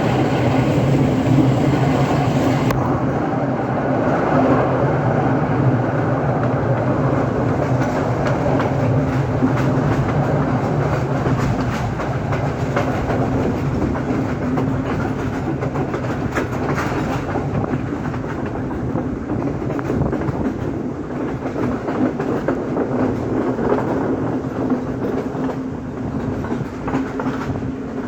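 Express train running along the track: a steady rumble and low hum from the moving train, with wheels clicking over the rail joints.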